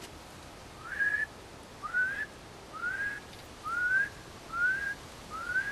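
A man whistling an imitation of a bird call: six short rising whistled notes, about one a second.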